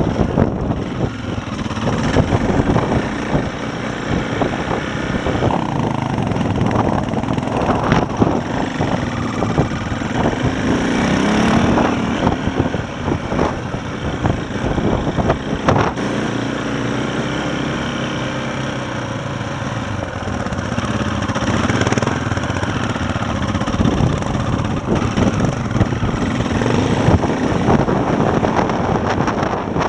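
KTM enduro motorcycle's single-cylinder four-stroke engine running at low speed under load, with the bike rattling over loose rock and a couple of sharp knocks along the way.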